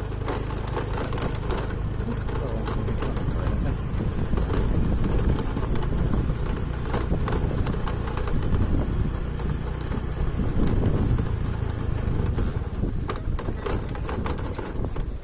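Motor scooter engine running steadily at low speed as it is ridden slowly along the road.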